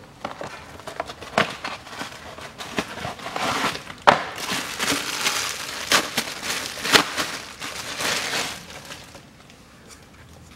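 Crinkling and rustling of packaging as a new carbon cabin filter is taken out of its box and wrapping. The crackles and rustles are irregular, and die away about a second before the end.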